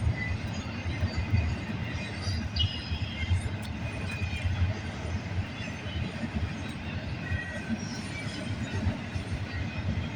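Cars of a CN intermodal freight train rolling past, a steady rumble of wheels on rail with faint, brief high-pitched wheel squeals now and then.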